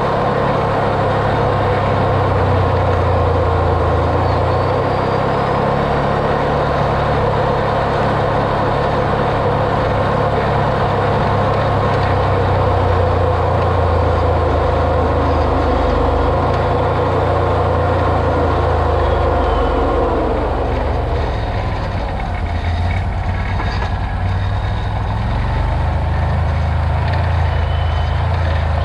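Off-road vehicle's engine running while driving, with a steady whine over the engine hum. About two-thirds of the way through, the whine falls away in pitch as the vehicle eases off, and near the end the engine note picks up again.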